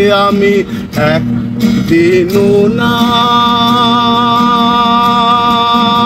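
A man singing to a strummed guitar, ending on a long held note that runs through the second half.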